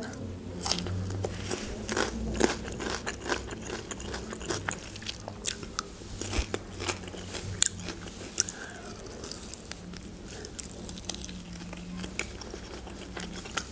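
Close-up eating sounds: crisp crunching bites and chewing of a raw green bell pepper ring, later giving way to chewing grilled chicken. Many short crunches and mouth clicks are scattered throughout.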